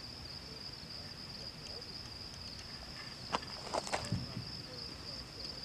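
Steady high-pitched trilling of night insects in the woods, with a few soft crackles a little past three seconds and about four seconds in, like steps on leaf litter.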